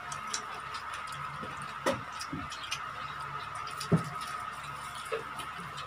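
Quiet eating sounds at a table: scattered small clicks and mouth noises, with two brief louder sounds about two and four seconds in, over a steady faint hum.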